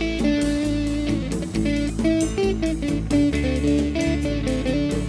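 Background music: a quick run of plucked guitar notes over a bass line.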